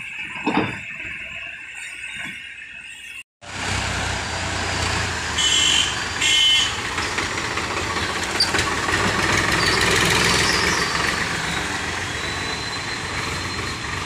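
Powertrac 439 diesel tractor engine running steadily close up, cutting in after a brief silence about three seconds in. Two short, high-pitched blasts, the loudest sounds here, come a few seconds later.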